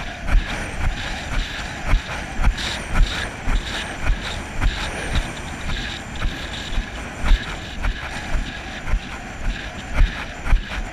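Horse cantering on grass cross-country: rhythmic hoofbeats, about two strides a second, over steady wind noise on the rider's helmet camera.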